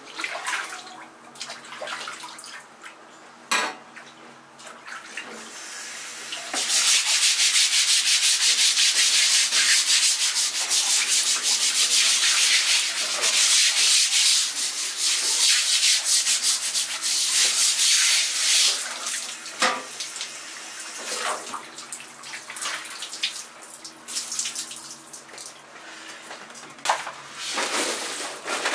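Stiff brush scrubbing a wet plastic cutting board with water running: a loud, even scrubbing hiss from about six seconds in until about nineteen seconds, with a few knocks of utensils before and after.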